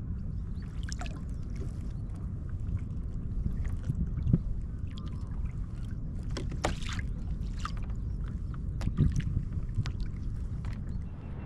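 Sounds aboard a fishing kayak on the water: a steady low rumble with scattered short clicks and knocks, the loudest a little over four seconds in and again about nine seconds in.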